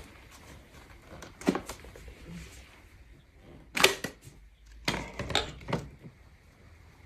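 Sharp clicks and knocks from handling a cordless upright vacuum cleaner and its parts: one knock about a second and a half in, a quick pair of clicks around four seconds, and several more between five and six seconds. The motor is not running.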